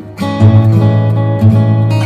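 Background music: strummed acoustic guitar chords, with a loud new strum about half a second in.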